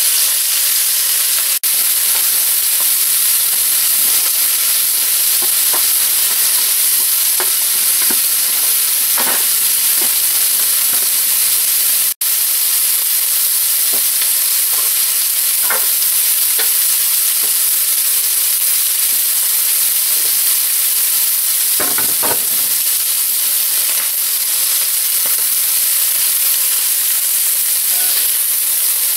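Chicken breast slices sizzling in hot oil in a cast-iron skillet, a steady loud hiss, with a few short clinks of metal tongs against the pan as the pieces are turned.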